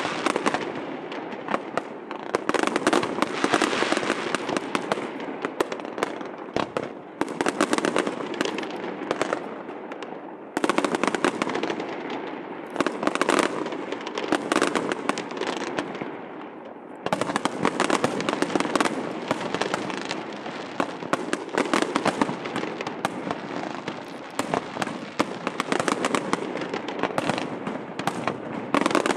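Aerial fireworks display: many shells bursting in quick succession, a dense, unbroken crackling and popping. Fresh volleys come in with sudden jumps in loudness about seven, ten and seventeen seconds in.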